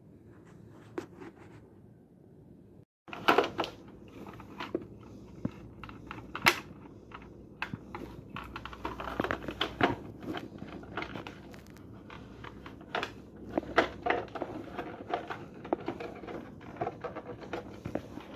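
Hands handling hardware: irregular sharp clicks, light knocks and rustling, starting abruptly about three seconds in and going on densely.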